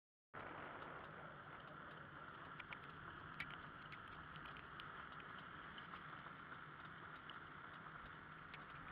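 Steady rolling noise of a velomobile moving along asphalt, heard from a camera mounted on its shell: a hiss with a low hum under it and scattered light clicks and rattles. It cuts in suddenly just after the start.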